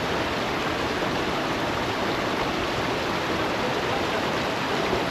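Steady rushing of flowing water, like a stream or small waterfall, unchanging throughout.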